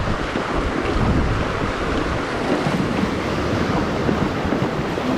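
Wind buffeting the microphone over the steady wash of sea surf, with a heavy low rumble.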